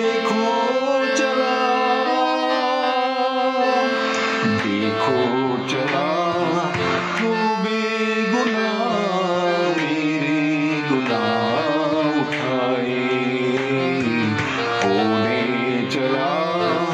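Hindi devotional hymn with instrumental accompaniment and percussion. Held instrumental notes open it, and a voice starts singing about four and a half seconds in.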